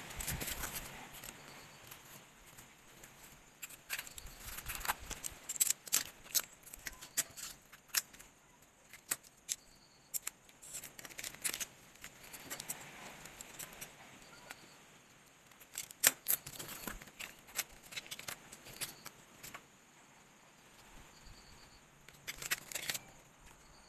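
Unboxing handling of K-pop albums and photocards: irregular crinkling of plastic sleeves and packaging, paper rustling and small sharp clicks and taps, with one louder click about two-thirds of the way through.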